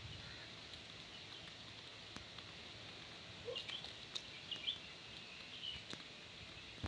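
Indian peafowl pecking grain off stone paving: a few sharp, isolated beak taps over a quiet outdoor background. Faint, short, high bird chirps come in a cluster through the middle.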